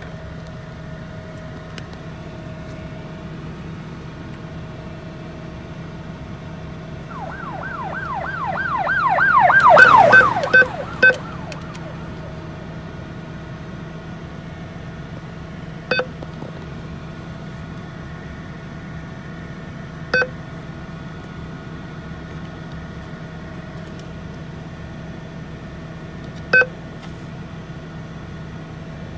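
A warbling siren grows louder for about three seconds and is the loudest sound, stopping about ten seconds in. ATM keypad beeps sound five times, single short beeps spaced several seconds apart, as the buttons are pressed. A steady low hum lies under it all.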